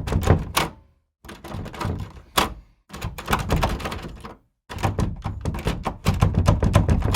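Sound-effect clips: four bursts of rapid clattering knocks and thuds, each a second or two long and cut off into dead silence.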